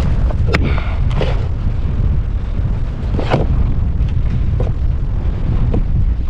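Wind buffeting the microphone, a heavy low rumble, with a few short knocks and clicks scattered through it.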